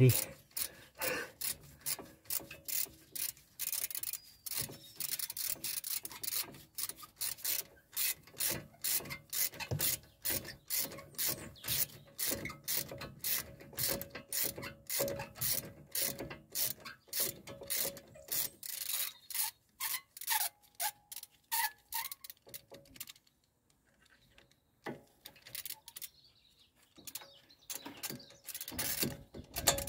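Ratchet wrench clicking in a steady run of quick, even strokes as it turns a 7mm hex bit to undo a front brake caliper bolt. The clicking stops a little over two-thirds of the way through, and a few soft knocks follow.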